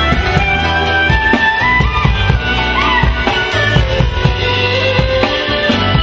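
Live instrumental music with a clarinet leading a sliding, ornamented melody, bending between notes, over bass and a drum kit keeping a beat.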